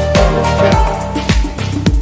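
Background music with a steady kick-drum beat and bass line.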